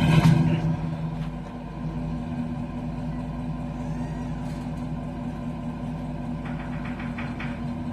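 Pickup truck engine running steadily, louder for a moment at the start and then settling, with a few light clicks near the end.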